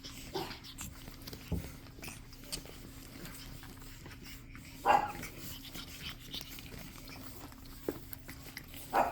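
Pug puppy giving a short, sharp bark about five seconds in and another near the end, amid small scuffling and clicking sounds of play.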